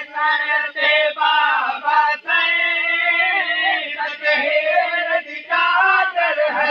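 A noha, a Shia mourning lament, sung without instruments: long wavering held notes with short breaks between phrases.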